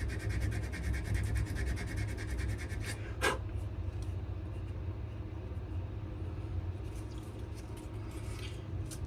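80-grit sandpaper rubbed back and forth by hand over a wooden knife handle, in quick, steady strokes. One louder, sharper stroke comes about three seconds in, over a steady low rumble.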